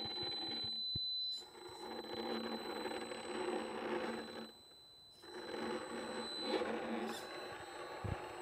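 Electric motor and gear drivetrain of an RC rock crawler whining steadily as it creeps along at low speed, cutting out briefly about one and a half seconds in and again for about half a second near the middle.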